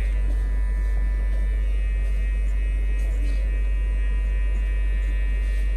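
Electric hair clipper running with a steady, unbroken buzz as its blade cuts short hair close to the scalp.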